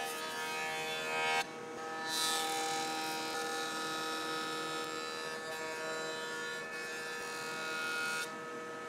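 Benchtop jointer running with a steady motor whine while its cutterhead planes a thick hardwood block fed across it. The cutting hiss comes up about two seconds in and eases near the end.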